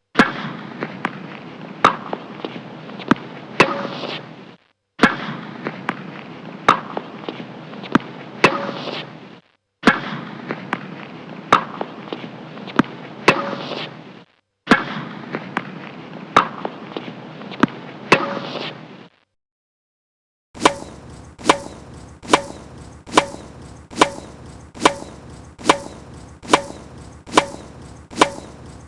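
Tennis ball being struck, sharp knocks at uneven intervals over a steady background hiss, in four separate clips of a few seconds each with short silent gaps between them. After a silence of about a second and a half, a more even run of hits follows, about one and a half a second.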